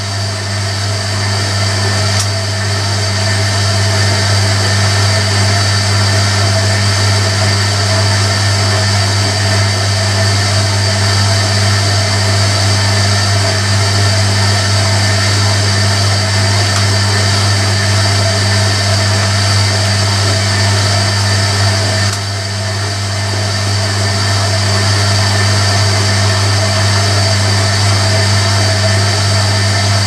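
Hoover Electronic A3172 washing machine running after the drain with a loud, steady low hum and a chugging sound that the owner finds unusual for a Hoover.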